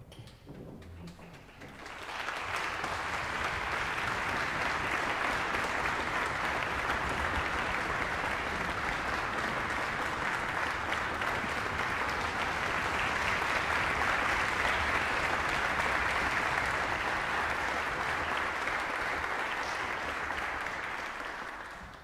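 Audience applauding in a concert hall: the clapping starts about two seconds in, holds steady, and dies away near the end.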